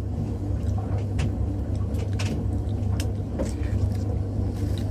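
Steady low background rumble, with a few light clicks and crinkles as a plastic food pouch is handled.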